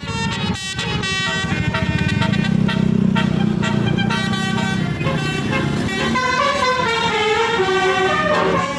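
Indonesian tour bus's 'telolet' multi-tone air horn on roof-mounted trumpets playing a melody, short stepped notes at first and a faster run of notes near the end. A low bus engine rumble sits underneath, loudest in the middle.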